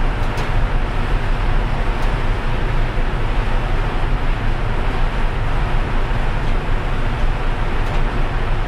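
Steady low rumble of a large ferry's engines and propellers under way, with the rush of its churning wake water.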